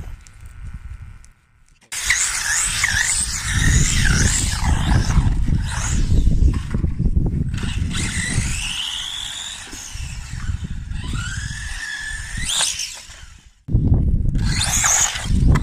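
Small RC cars driving hard: the electric motors whine, the pitch gliding up and down as the throttle is worked, over a low rumble of tyres on the ground. The sound cuts in abruptly about two seconds in and drops out briefly near the end.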